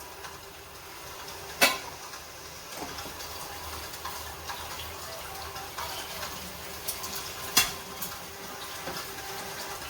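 Food cooking in a pot on the stove, a steady hiss of sautéing. There are two sharp knocks of a utensil against the pot, about a second and a half in and again about six seconds later, with lighter clinks between them.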